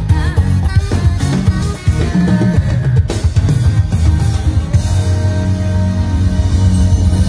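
Live pop band playing loudly through a concert sound system, with drum kit and electric guitar to the fore over a heavy bass line.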